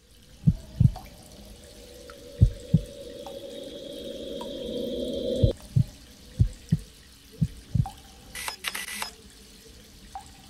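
Water dripping in hollow low plops, mostly in pairs, over a steady rushing hiss that grows louder and then cuts off suddenly about halfway through. A short noisy burst follows shortly after.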